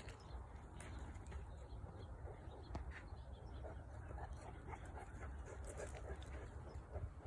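Quiet outdoor background: a steady low rumble with a few faint scattered ticks.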